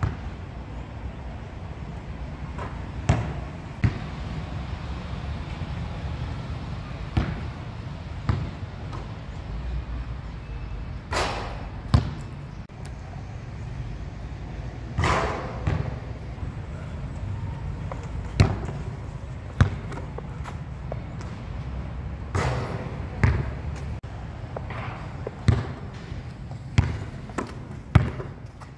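A basketball bouncing on a hard outdoor court, with single sharp thuds at uneven intervals from a second to several seconds apart, over a steady low rumble.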